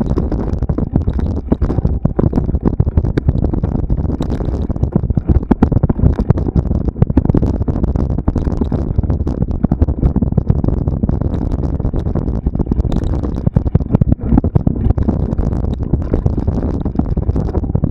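Mountain bike ridden over a rough cross-country trail, heard from a camera mounted on the bike or rider: a continuous low rumble with dense, irregular knocks and rattles.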